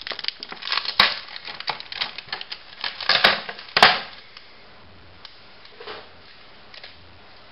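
Cardboard box packaging being handled and opened: a run of clicks, knocks and scraping rustles, with the sharpest knocks about a second in and again near three and four seconds, dying down after about four seconds.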